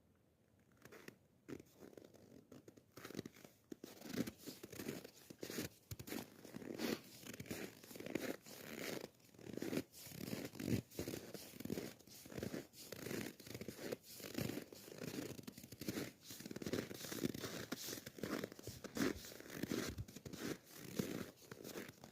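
Footsteps crunching and squeaking on hard-frozen snow in frost, at a steady walking pace, beginning a few seconds in.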